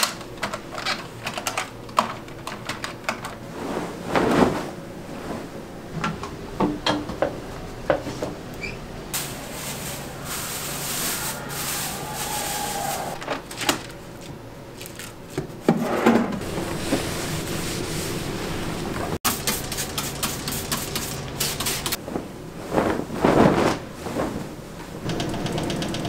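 Housekeeping sounds in a small room: a microfiber cloth rubbing over furniture and a telephone, a drawer being opened, and many scattered clicks and knocks of objects being handled, with two longer stretches of rubbing hiss.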